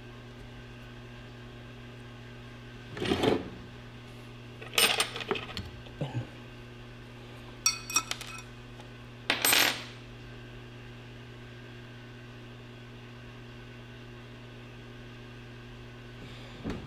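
Metal engine parts clinking and knocking as they are handled during an engine teardown: a few short bursts of clinks in the first ten seconds, one with a brief metallic ring, over a steady low hum.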